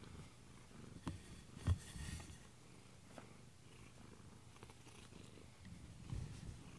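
Domestic cat purring steadily right at the microphone, with brief knocks about one and two seconds in.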